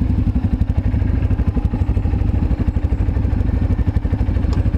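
ATV engine idling, a steady fast low putter close by.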